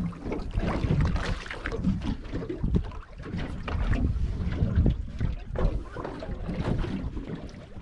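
Wind buffeting the microphone and water lapping against the hull of a small aluminium boat, with scattered knocks.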